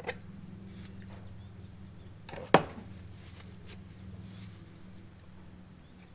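Handling of the engine's oil dipstick and filler cap while checking the oil level: a small click at the start, a few faint ticks, and one sharp knock about two and a half seconds in, over a steady low hum.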